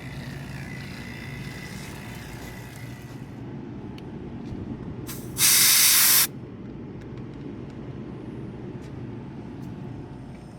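R410A refrigerant hissing out of a gauge charging hose in one loud burst, just under a second long, about five and a half seconds in, as the hose is purged or connected while charging the system. A steady low machine hum runs underneath.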